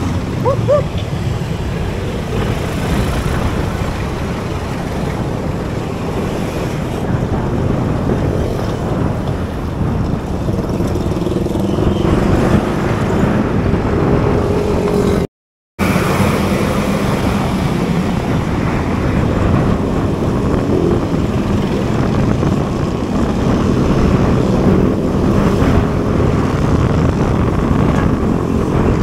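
Steady roar of wind on the microphone of a bicycle rider moving through city traffic, mixed with the engines of surrounding cars, trucks and motorcycles. The sound cuts out completely for about half a second about halfway through.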